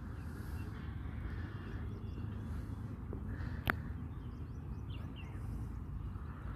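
Outdoor background: a steady low rumble of ambient noise with a few faint bird chirps about five seconds in, and a single sharp click a little past halfway.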